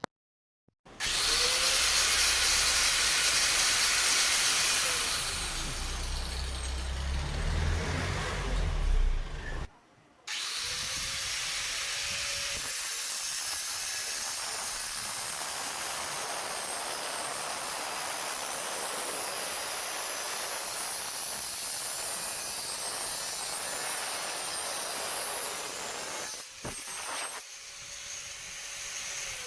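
1020-watt angle grinder with a cutting disc running and cutting iron: a steady loud hissing grind, the motor's whine rising as it spins up about a second in and again after a short break about ten seconds in.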